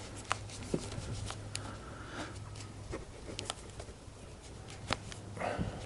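Scattered light clicks and taps of tools and small motorcycle parts being handled, with a sharper tap about five seconds in, over a steady low hum.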